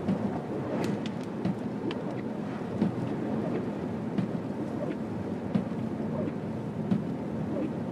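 Car driving on a snow-covered road: a steady rumble of the tyres and engine, with scattered light ticks throughout.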